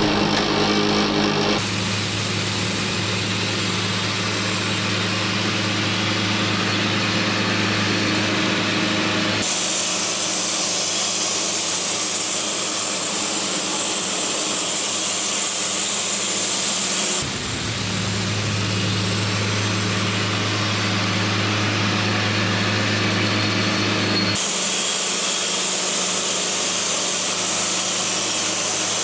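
Portable sawmill running under engine power, sawing pine into boards. The sound switches abruptly several times between a steady low engine hum and a brighter hissing cut.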